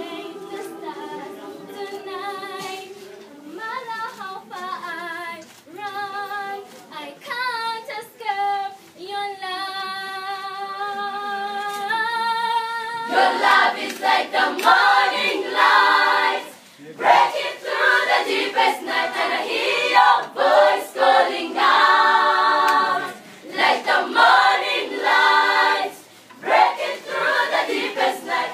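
Children's choir singing: one voice leads a melody, then about thirteen seconds in the full choir comes in, much louder.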